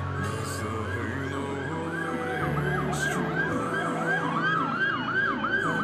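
Police car siren in a rapid yelp, rising and falling about three times a second, heard from inside the cruiser. A slower wailing sweep rises over it around the middle.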